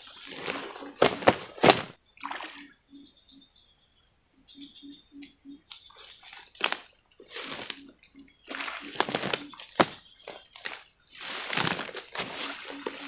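Outdoor rustling noise in repeated bursts, with a sharp click about two seconds in and another near ten seconds. In the quieter gaps come runs of short low pulses, about three a second.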